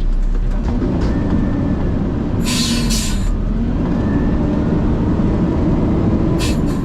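Garbage truck's diesel engine revving under hydraulic load as the hydraulics work the hopper and packer blade, with two short bursts of hiss, about two and a half seconds in and near the end.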